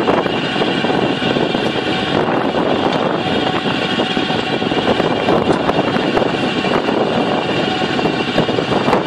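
Engine running at a steady speed, a constant loud drone with no change in pitch.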